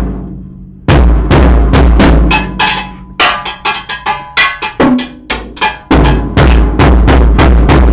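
Drum kit played with sticks: loud, irregular hits on bass drum, snare and cymbal. A quick flurry of strikes comes in the middle, and heavier spaced hits with deep bass-drum thumps follow near the end.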